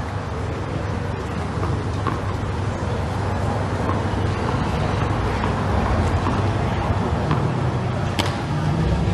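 Steady low rumbling ambient noise of an outdoor tennis court, with a single sharp click near the end.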